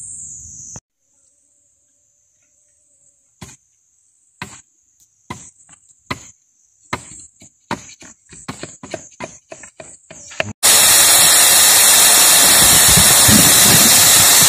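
A run of sharp, irregular knocks over a steady high insect whine, then, about ten seconds in, a sudden very loud steady hiss of compressed air blasting rock dust out of the ground.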